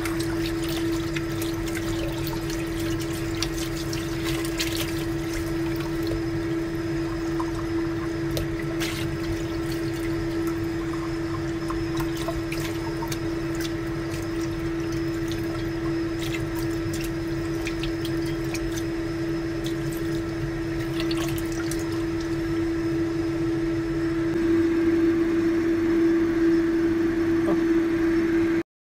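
Tap water running into a bowl in a stainless steel sink as hands swish and rub soaked black fungus (wood ear mushrooms) in the water, with small splashes and a steady hum underneath. The water gets a little louder near the end, then cuts off suddenly.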